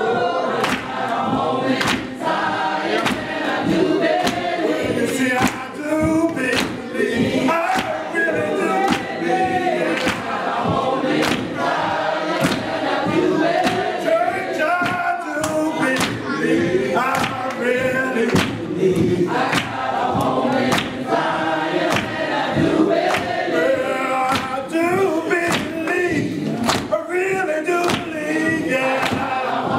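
Gospel choir and congregation singing together, with sharp handclaps on a steady beat.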